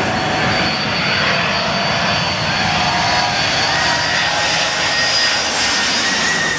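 Boeing 747 jet airliner passing low overhead on landing approach. Its four jet engines run with a steady, loud rush of noise and a high whine.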